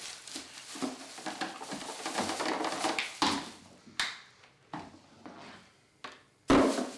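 Handling noise from plastic blister packs of air-hose fittings: scattered light clicks and rustling, with a louder rustle near the end.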